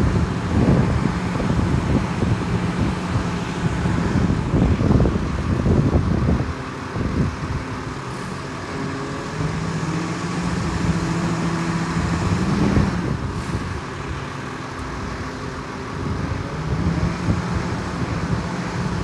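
Steady road traffic with engine hum that shifts in pitch as vehicles pass, and wind buffeting the microphone, rougher in the first few seconds and again near the end.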